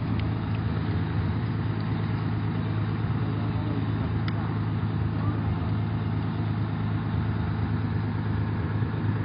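Diesel engine of a Dina coach bus idling, a steady low hum that does not change.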